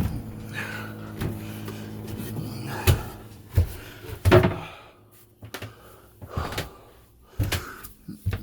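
Scattered knocks and clunks of someone moving about a small boat cabin, like hatch or locker doors and footsteps, heard over a low steady hum that stops about five seconds in.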